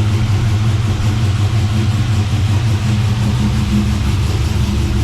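Freshly refitted GM LS1 5.7-litre V8 idling steadily on its first run, the idle a bit high. It runs with no abnormal noises.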